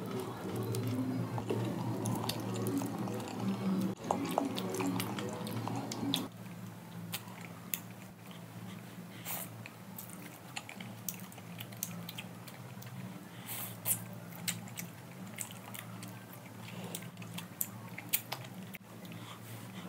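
Close-up eating sounds of a person chewing food, with many short wet mouth clicks over a low steady hum. The clicks stand out more clearly from about six seconds in.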